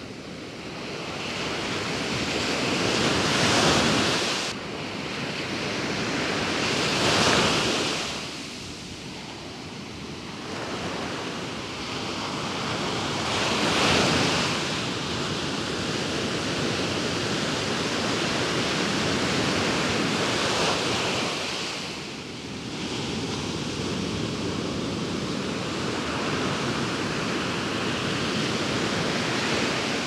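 Large ocean waves breaking on the shore: a continuous rush of surf that swells into a louder crash every few seconds, then settles into an even wash of foam.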